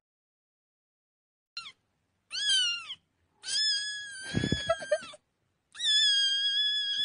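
A kitten meowing four times in a high voice: a short cry, a falling meow, then two long drawn-out meows.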